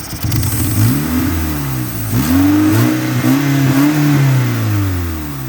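Mitsubishi 4G63 four-cylinder engine revved twice: a short rev that drops back about two seconds in, then a longer rev held through the middle that falls back toward idle near the end. The engine has a vacuum leak that the owner can hear but has not located.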